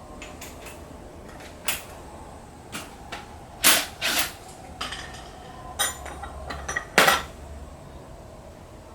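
Irregular clinks and knocks of hard objects, metal parts and tools being handled and set down on a workbench, the loudest about three and a half and seven seconds in.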